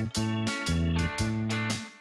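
Background music with plucked string notes over a low bass line.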